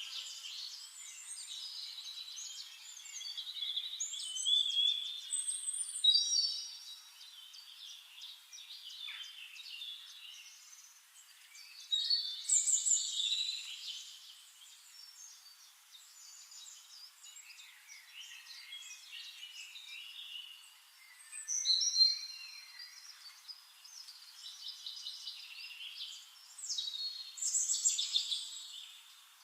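Several songbirds singing over each other: a chorus of chirps, trills and quick whistled sweeps, rising into louder phrases every several seconds.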